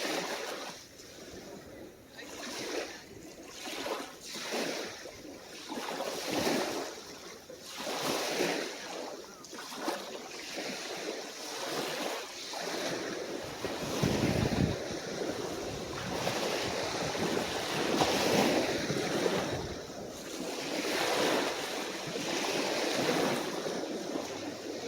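Small, calm waves breaking and washing up on the shore one after another, each a rush of surf noise. A gust of wind buffets the microphone about fourteen seconds in.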